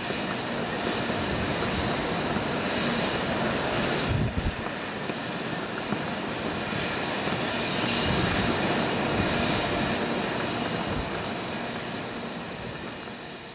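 Steady distant rumble with a faint hum, swelling a little through the middle and fading away at the end, with a few low bumps.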